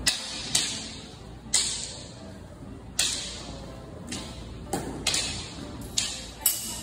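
Wooden bâtons clacking together as parries and ripostes are exchanged: about ten sharp knocks, irregularly spaced and coming quicker in the second half. Each knock echoes briefly in a large hall.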